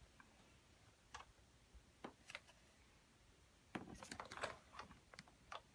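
Near silence broken by faint, scattered handling clicks and light rattles, with a denser run of them a little under four seconds in.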